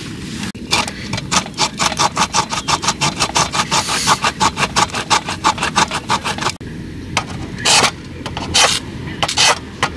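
Small hand saw cutting a piece of firewood in fast, even strokes, about five a second. It stops about two-thirds of the way through, and three slower single scrapes follow.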